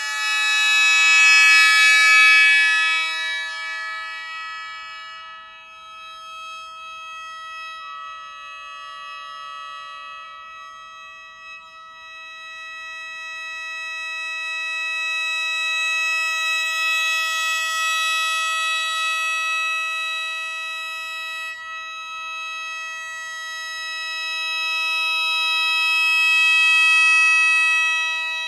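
Shō, the Japanese mouth organ of 17 bamboo pipes with metal free reeds, sounding high, dense, sustained chords without a break. The chord shifts a few seconds in, and the sound swells and fades three times.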